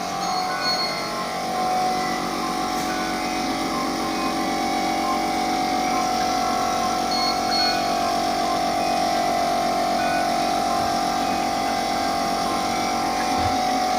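Ventilator running: a steady high whine over an even hiss of flowing gas.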